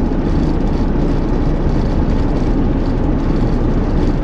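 Steady in-cabin driving noise of a Ford Expedition at about 45 mph: engine, road and wind noise together. Its 5.4L Triton V8 is misfiring and running rough.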